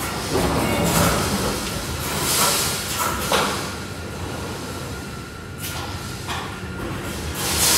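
BRC wire-mesh welding machine running: a steady mechanical hum with loud noisy surges about every one to two seconds, at uneven intervals.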